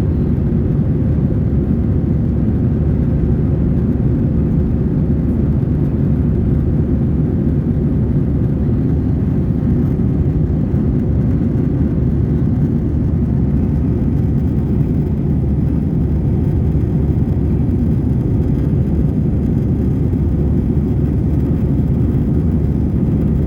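Steady low rumble of an Airbus A320's engines and airflow heard inside the passenger cabin after take-off, unchanging throughout.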